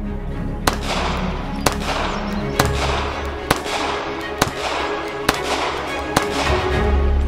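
Browning BDA .380 ACP semi-automatic pistol firing about seven shots at a steady pace of roughly one a second, each crack followed by a short echo, over background music.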